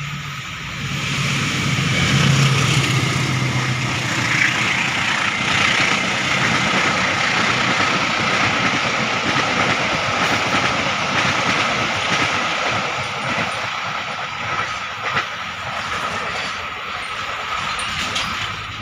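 A train passing close by on a sharp curve: the locomotive's engine hum in the first few seconds, then the carriages rolling past with a steady high wheel squeal on the curve and a few sharp clacks from the wheels.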